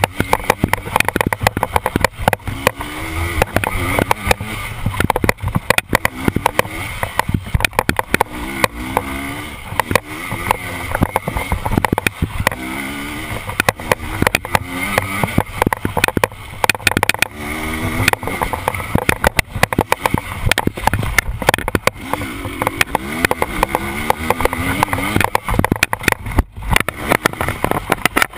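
KTM dirt bike engine revving up and dropping off over and over as it is ridden hard along a woodland trail, with frequent knocks and rattles from the bike bouncing over rough ground.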